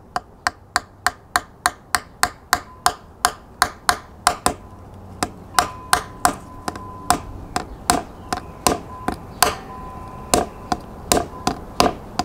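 Claw hammer tapping a metal standoff into a 3D-printed drone prop guard held on a wooden board: quick, light taps, about four a second, slowing and growing uneven in the second half. A faint steady ring comes in about halfway.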